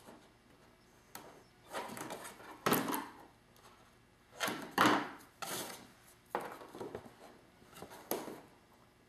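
Paper-crafting handling sounds: double-sided sticky strip tape pulled from its reel and snipped with scissors, and folded cardstock rustled and pressed flat, in a string of short rustles and clicks.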